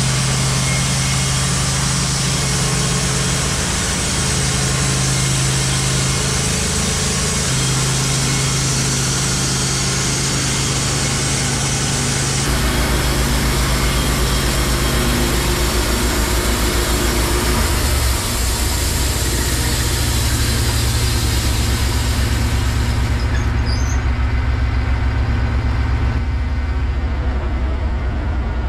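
Wood-Mizer LT15 Wide portable band sawmill running, its engine at a steady pitch with the band blade sawing eastern white pine, a steady high hiss over the engine. Near the end the hiss drops away and the engine keeps running.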